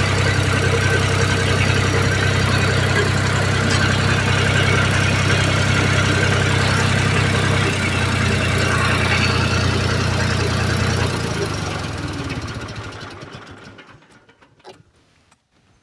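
Tractor engine running steadily, its note shifting slightly about halfway through, then dying away over the last few seconds to near quiet.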